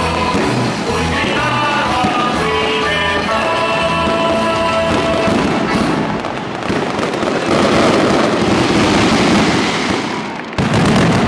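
Music with sustained tones plays over a fireworks display, fading out about halfway through. Dense crackling and hissing of fireworks follows, ending in a sudden loud burst near the end.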